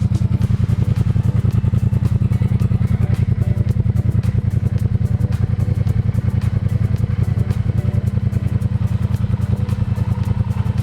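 Triumph Bobber's parallel-twin engine running at a steady speed, its exhaust giving a rapid, even pulsing beat with no revving.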